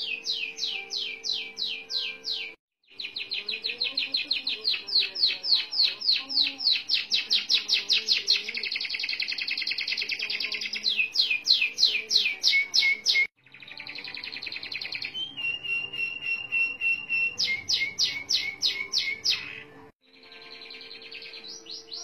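Domestic canary singing long rolling trills: fast runs of repeated notes that change speed and pitch from phrase to phrase. The song breaks off abruptly three times, about three seconds in, around thirteen seconds and near the end.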